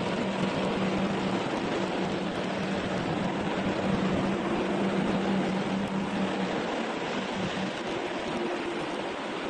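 Steady machine running noise with a low hum that fades in and out.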